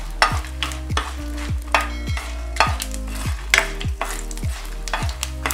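A wooden spatula scraping and stirring whole cumin seeds, black peppercorns and dried red chillies in ghee in a hot nonstick pan, about two strokes a second, over a light sizzle as the spices roast.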